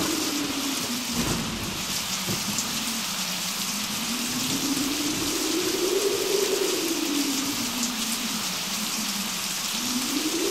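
Steady rain, likely a storm sound effect, hissing evenly throughout, with a low tone underneath that slowly rises and falls.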